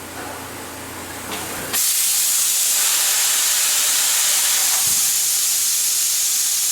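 Low machine hum, then about two seconds in a loud, steady hiss starts abruptly and cuts off suddenly near the end, like a jet of air or spray being switched on and off on a CNC gear hobbing machine.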